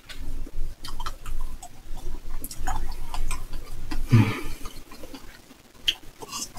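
Spoon and fork tapping and scraping against a stainless steel mixing bowl and a plate, a run of light, irregular clicks, with eating sounds. A brief voiced hum comes about four seconds in.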